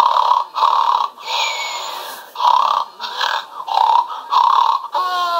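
Rhythmic snoring, a rasping breath about every second. Near the end a pitched, falling whine-like sound begins.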